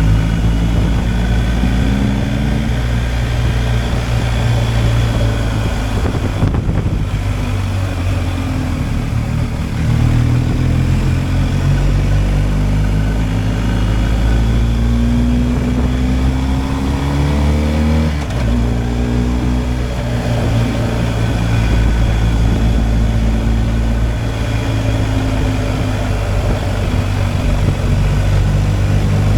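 BMW R 1250 GS Adventure's boxer-twin engine pulling under way, its pitch rising as it accelerates and dropping sharply about two-thirds of the way through at a gear change, with a brief lift off the throttle near the start. Wind rush runs underneath.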